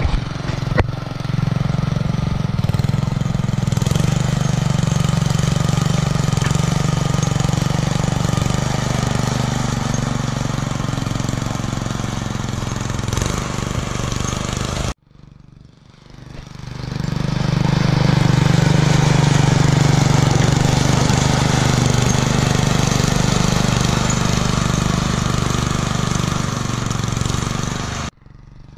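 Small single-cylinder-style engine of a homemade garden tractor running steadily under load while plowing snow, breathing through a homemade muffler, with a fast throbbing beat. The sound breaks off sharply about halfway, swells back in, and cuts off near the end.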